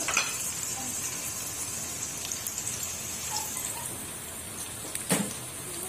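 Sliced onions sizzling and crackling in hot ghee in an aluminium pot, just after being added, with a single knock about five seconds in.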